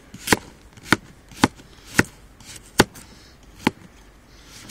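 Laguiole folding knife slicing a raw carrot into thin rounds: six crisp chops as the blade snaps through the carrot and strikes the surface beneath, about half a second to a second apart, spacing out toward the end.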